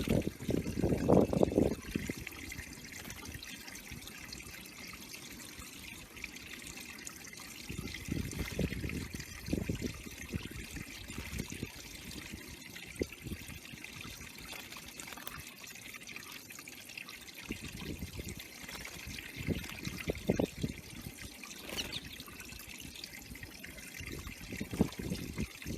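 Water trickling steadily into a backyard bird pond, with louder low surges of noise a few times.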